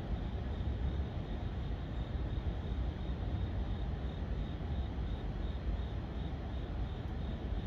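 Crickets chirping in a steady, evenly pulsing rhythm over a low, constant rumble.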